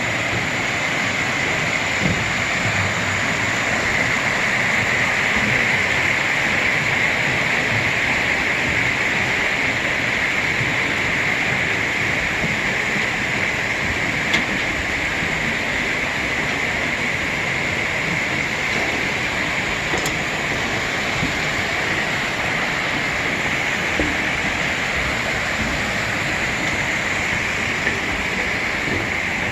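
Water of a mountain valley stream running in a steady rush, with a few faint clicks now and then.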